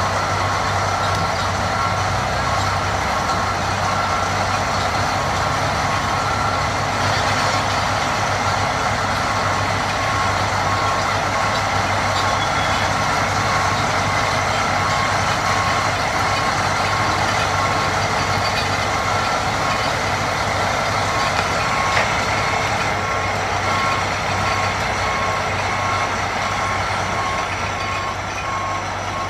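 Diesel engines of Caterpillar 583 sideboom tractors running steadily, with a reversing alarm beeping over them until near the end.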